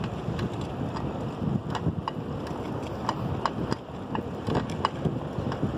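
Wind rushing over the microphone of a moving bicycle, with scattered sharp clicks at irregular moments.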